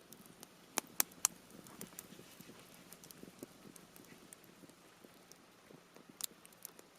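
Campfire of half-dried cedar wood crackling, with three sharp pops in quick succession about a second in and another loud pop near the end, over a faint hiss and scattered small ticks.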